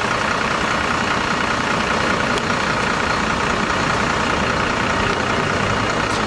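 Steady city street traffic noise, with a bus engine running close by.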